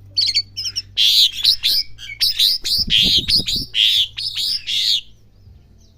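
Asian pied starling (jalak suren) practising its song: a rapid string of loud chattering notes that stops about five seconds in.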